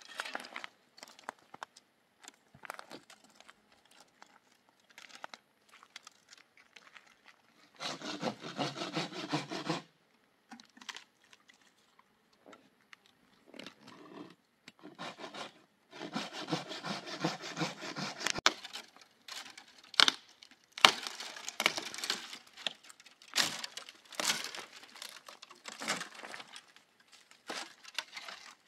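Firewood being worked by hand: two spells of quick sawing strokes, then a series of sharp cracks of wood.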